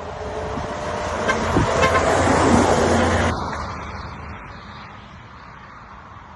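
Truck passing close by at road speed, its noise building to a peak about three seconds in and then fading away, with a horn sounding as it approaches.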